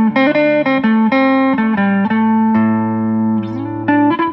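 Guitar music: plucked notes and chords picking out a slow melody, the notes changing about twice a second.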